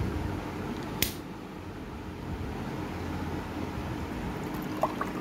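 Fanta being poured from a bottle into a drinking glass, over a steady low hum, with one sharp click about a second in.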